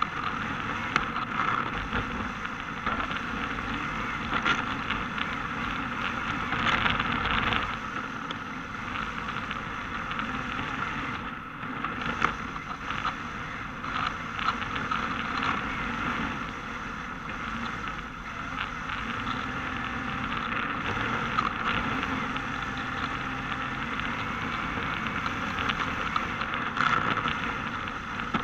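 Onboard sound of a Yokomo DRB electric 1/10 RC drift car driving and sliding on asphalt: a steady noisy rush from its drivetrain and tyres, with scattered knocks and rattles.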